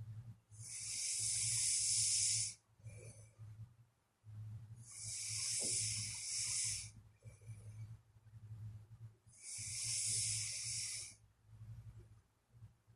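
A sleeping person snoring: a hissing breath about two seconds long comes three times, roughly every four and a half seconds, with a low rumble between the breaths.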